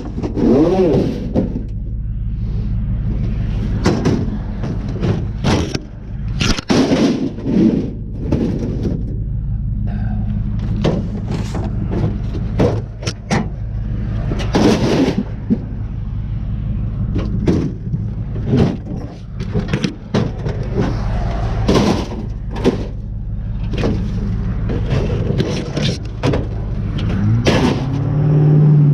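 An engine runs steadily under frequent sharp knocks and bangs, like scrap metal being handled. It revs up and back down near the end.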